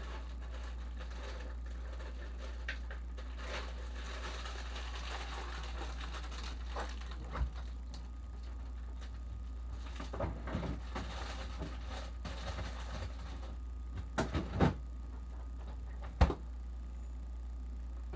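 Kitchen refrigerator door being opened and shut, with rustling and a few knocks, over a steady low hum. The loudest sound is a sharp thud about 16 seconds in, as the door closes.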